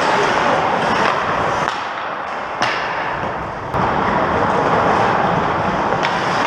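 Ice hockey play in an arena: a steady scraping hiss of skate blades on the ice, broken by a few sharp clacks of sticks and puck, the sharpest about two and a half seconds in.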